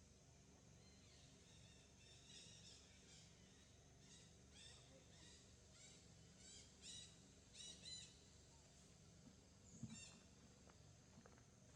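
Faint, high-pitched animal calls: a series of short chirping calls repeating every half second or so for several seconds, followed by a soft knock near the end.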